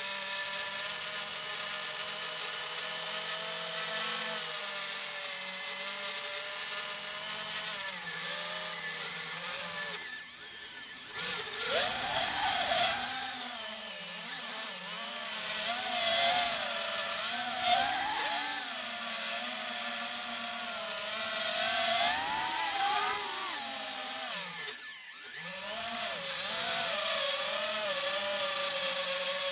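FPV quadcopter's electric motors and propellers whining, the pitch rising and falling with the throttle. The whine drops away briefly twice, about ten seconds in and again about twenty-five seconds in, before picking up again.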